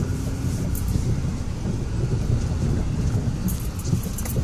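Inside the cab of a Ford Raptor pickup crawling over a rough, rocky dirt trail: a steady low rumble of engine and tyres with the truck jostling. A run of sharp rattles and clicks comes near the end.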